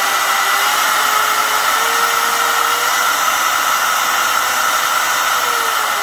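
Maxshine M550 mini rotary polisher's brushed electric motor running with a steady whine that rises in pitch over the first two seconds as the speed dial is turned up to 4, holds, then drops near the end as the dial is turned back down to 3.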